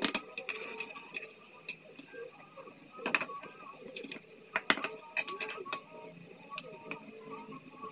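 Kitchen handling noise from plastic utensils: sliced carrots scraped off a plastic cutting board onto a plastic plate, then the plate and a plastic bowl knocked down on the counter twice, sharply, followed by small clicks as a shallot is peeled.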